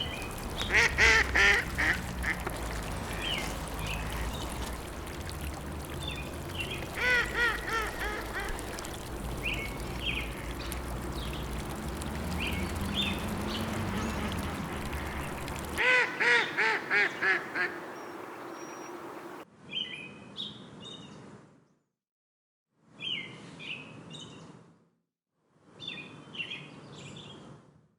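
Ducks quacking in three bursts of several quacks over a steady low rushing background. About two thirds of the way in the background drops out, and small birds chirp in short clips of about two seconds separated by dead silence.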